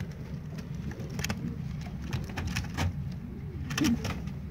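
Domestic pigeons cooing low, with a louder coo near the end, over a steady low rumble and scattered light clicks.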